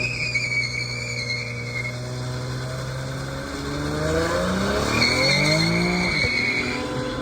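V6 car engine held at high revs for a burnout, the worn, nearly bald rear tires spinning and squealing against the pavement. The squeal fades about two seconds in and returns around five seconds in, while the engine pitch climbs and falls in the middle and drops off near the end.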